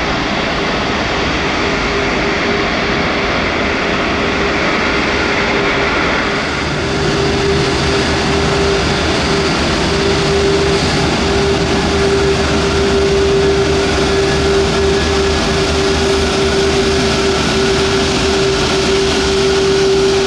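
Airbus A340-600's four Rolls-Royce Trent 500 jet engines running at low thrust while the airliner taxis: a steady jet whine holding one constant tone over a broad rush of noise, growing slightly louder about seven seconds in.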